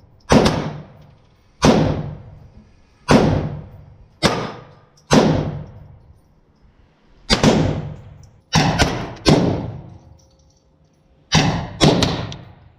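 A string of about ten single gunshots fired at an uneven pace, some close together in pairs, each followed by a short echoing tail.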